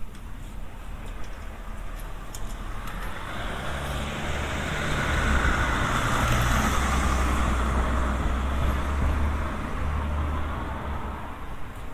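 A motor vehicle driving past on the street. Its engine hum and tyre noise build up, are loudest in the middle, and fade away near the end.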